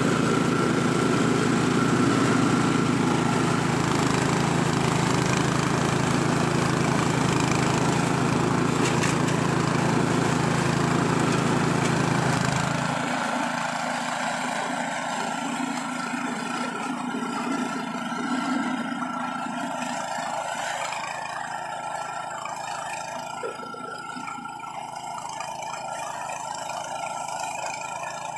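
Senci 7.5 hp single-cylinder four-stroke engine on a belt-driven push lawn mower, running steadily. About halfway through its deep low hum cuts off abruptly and the engine carries on quieter and thinner.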